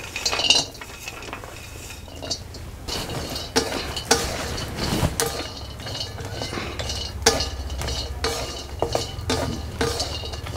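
A wooden spatula stirs and scrapes chopped dry coconut around a hot iron tava, with repeated short knocks and scrapes as the coconut is dry-roasted. About half a second in there is a louder clink as the pieces are tipped in from a steel plate.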